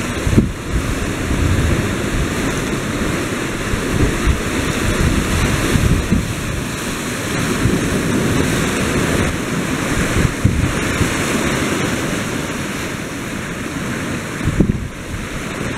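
Rough sea surf surging and breaking over shoreline rocks in a continuous washing roar, with wind buffeting the microphone.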